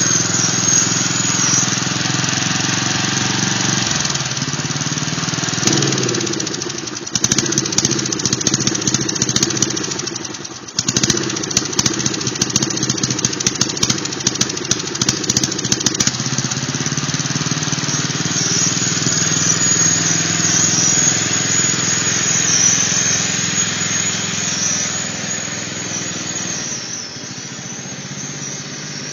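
Old Briggs & Stratton four-stroke riding-mower engine running on propane fed through a grill regulator, driving along under its own power. Its pitch rises about six seconds in, and a run of sharp cracks and knocks comes through from about seven to sixteen seconds in.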